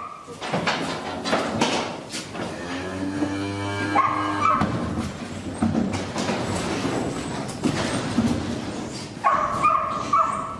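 Cattle being loaded up a metal ramp into a livestock truck: clattering of hooves, gates and steel, with a cow lowing for about two seconds roughly three seconds in. Short high-pitched calls come around four seconds in and again near the end.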